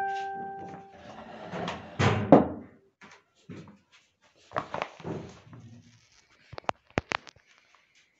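A short ringing chime at the start, then rustling and thumps as a mattress is pulled back off the wooden slatted base of a Moroccan floor sofa, with a few sharp wooden knocks near the end.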